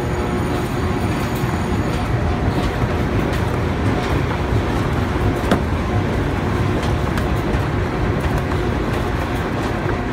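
Automatic flexo printer slotter die cutter running for carton-box production: a steady, loud mechanical rumble of its rollers and sheet feed, with one sharp click about five and a half seconds in.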